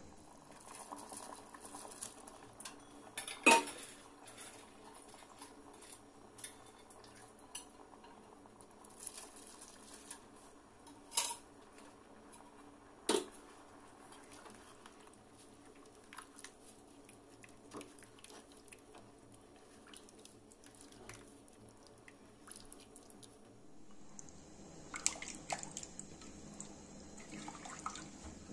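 Spatula knocking sharply against an aluminium cooking pot three times, over the bubbling of a boiling meat broth; near the end, the spatula scrapes and clatters as rice is stirred into the broth.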